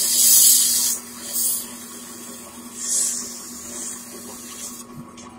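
Stabilized purpurite pressed against a spinning lapidary wheel: a loud hissing grind for about the first second, then shorter, quieter bursts each time the stone touches the wheel again, over the steady hum of the machine's motor.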